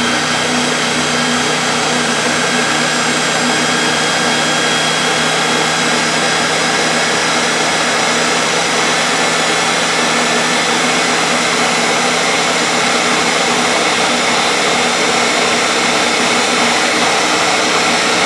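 Ninja countertop blender motor running loud and steady on its mix setting, blending a thick cake batter, with a steady whine over the motor noise.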